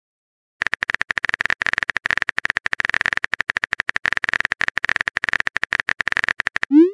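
Rapid keyboard-typing clicks from a texting-app sound effect, a long unbroken run. Near the end comes a short rising blip as the message pops up.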